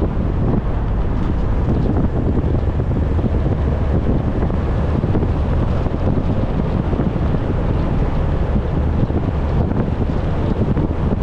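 Steady low rumble of wind and road noise from a car on the move, with wind buffeting the microphone.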